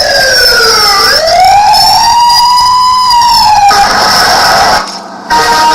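Recorded siren wail played back from a tape recorder as a makeshift burglar alarm. Its pitch falls, rises and falls again. A little before four seconds in it changes to a steadier tone, with a brief drop-out near the end.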